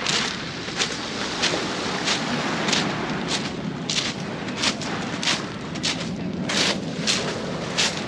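Footsteps crunching on beach pebbles at a steady walking pace, about three steps every two seconds, over a steady hiss of wind and small waves.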